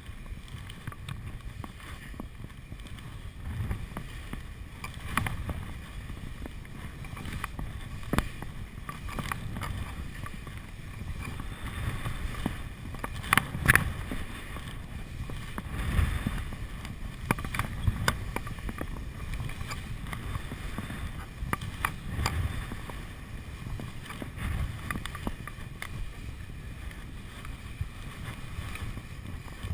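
Skis running downhill over snow with a steady hiss and scrape, under a low rumble of wind on the body-worn action camera's microphone. Scattered sharp knocks and clatters come through the descent, the loudest a cluster about halfway through.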